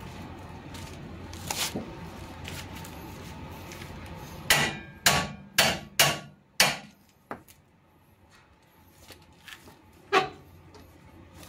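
Hammer blows on the front lower control arm of a 2008 Honda Civic as it is fitted: five sharp strikes about half a second apart near the middle, then one more strike about three and a half seconds later.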